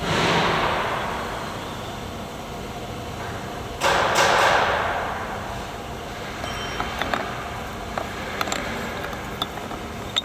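CNC router machine noise: a hissing swell at the start and a louder one with a sudden onset about four seconds in, each fading over a second or two, followed by scattered light clicks.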